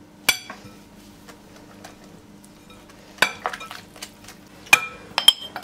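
Whisk stirring flour into batter in a glass mixing bowl, a soft scraping broken by knocks, with several sharp ringing clinks of utensils against the bowls near the end.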